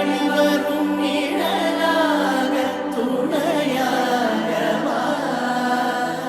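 Background music of voices singing together over a held low drone note, in the style of a devotional chant.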